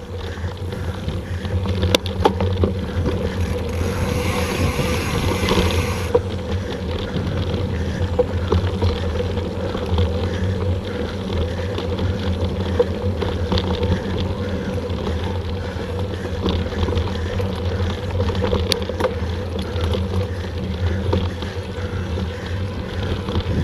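Mountain bike ride on a dirt trail: a steady low rumble of wind on the camera microphone and tyres rolling over dirt, with a few sharp clicks and rattles from the bike. About four seconds in, a hissing rustle lasts for around two seconds.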